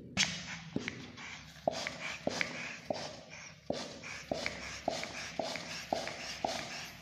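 Hand pump inflating a long latex modelling balloon: a steady run of pump strokes, each a sharp click with a short rush of air, about one every 0.6 s, with a brief pause near the middle.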